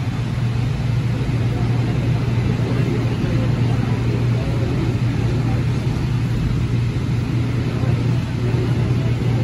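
Steady low hum inside an AnsaldoBreda P2550 light rail car standing at a station, from the car's onboard equipment running while it waits, with faint voices around it.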